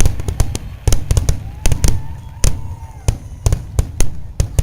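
Aerial fireworks going off in a rapid, irregular series of sharp bangs and crackles, with a thin whistling tone that falls slightly in pitch a second or so in; the bangs thin out toward the end.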